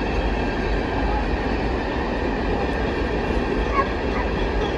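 Ballast hopper cars of a freight train rolling past: a steady rumble of wheels on rail. A few brief high chirps come in near the end.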